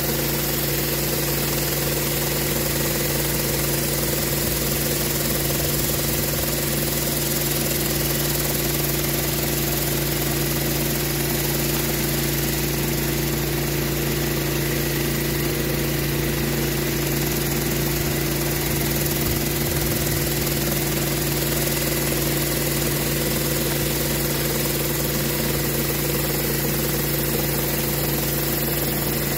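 Pressure washer engine running steadily, with the hiss of a rotary surface cleaner spraying water onto a rubber wet-pour surface.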